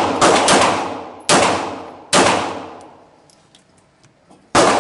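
Five shots from a 9mm semi-automatic pistol fitted with a 16 lb recoil spring: two in quick succession, two more about a second apart, then a pause of over two seconds before the last. Each report rings on in the echo of an indoor range.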